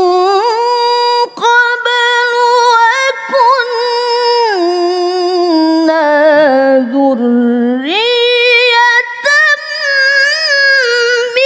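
A woman reciting the Qur'an in the melodic tilawah style into a microphone, drawing out long ornamented notes. The line steps down to a low passage and climbs back up about eight seconds in.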